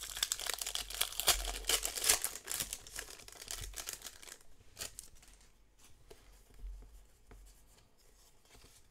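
The foil wrapper of a Pokémon card booster pack is torn open and crinkled by hand. After about four and a half seconds it gives way to fainter clicks and rustles as the cards are slid out and handled.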